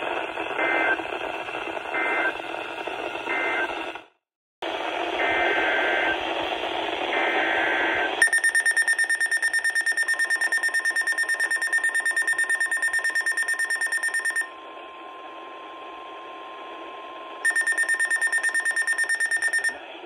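Weather alert radio on NOAA Weather Radio: short bursts of data tones over static, then the radio's loud, fast-pulsing alert beep for about six seconds. The beep stops, then sounds again briefly near the end, with a faint steady warning tone underneath. The sequence signals an incoming severe thunderstorm warning.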